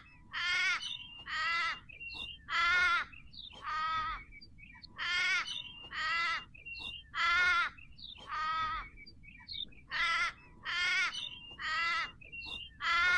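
Crow cawing: a series of harsh, drawn-out caws, about one a second, in runs of four or five with short pauses between.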